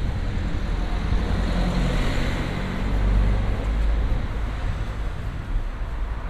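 Road traffic on a city street: a motor vehicle passes close by, its engine and tyre noise swelling to a peak about three seconds in and then easing, over a steady low rumble of traffic.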